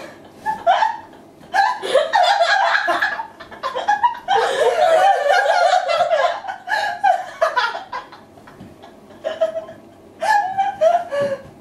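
Two women laughing together in bursts of pulsing laughter, with one long high laugh held about halfway through and a brief quieter lull before a last run of laughter.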